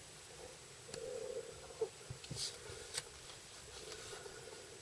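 Faint handling noise of a Kienzle pocket watch turned in the fingers: soft rubbing on the case and a few scattered light clicks, about a second apart around the middle.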